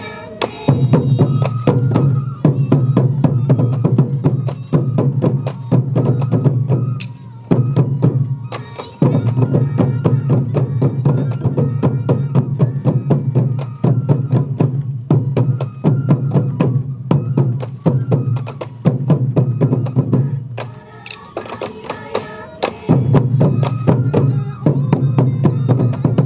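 Traditional Morioka Sansa odori dance music led by taiko drums beating a steady, fast rhythm. The drumming eases off briefly twice, once about a third of the way in and again near the three-quarter mark.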